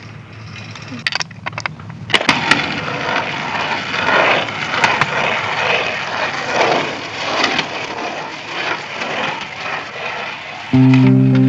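A bicycle being walked, with a few sharp clicks and then a steady rattling, ticking noise from the wheels and freewheel. Music comes in loudly near the end.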